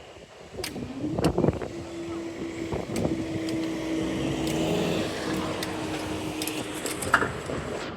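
Road traffic passing over a level crossing: vehicle engines and tyres with a few sharp knocks, and a steady mid-pitched tone that holds from about two seconds in until near the end.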